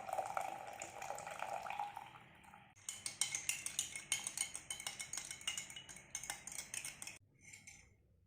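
Warm water pouring into a glass, then a spoon stirring and clinking rapidly against the glass for about four seconds before stopping abruptly.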